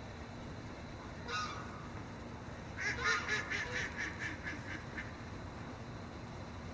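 A bird calling: one short call, then a quick run of about ten calls, roughly four or five a second, that fades out.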